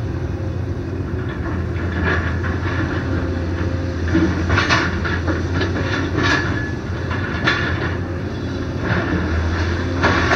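XCMG crawler excavator's diesel engine running steadily under load, with several sharp cracks and clanks of timber framing and concrete block being torn down between about four and eight seconds in, and one more near the end.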